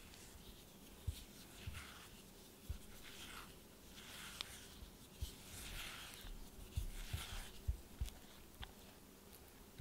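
Silicone spatula stirring almond flour into creamed butter and egg in a glass bowl: soft, repeated scraping strokes through the damp flour, with several short dull knocks.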